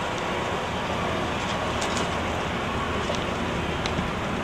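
Steady background noise of a busy hall, an even rumble and hiss with a few faint clicks.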